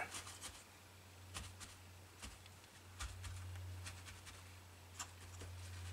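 Paper towel being dabbed and rubbed over small plastic model kit parts to dry them: faint, scattered soft rustles and light taps, over a steady low hum.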